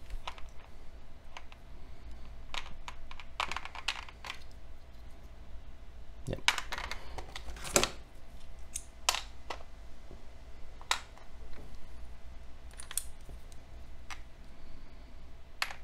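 Irregular small clicks and taps of a plastic Lego 9V train connector and small tools being handled, with a few sharper knocks about six and a half and eight seconds in.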